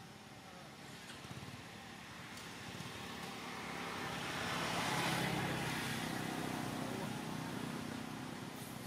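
A motor vehicle passing by: a low engine hum and rushing noise swell to a peak about five seconds in, then slowly fade.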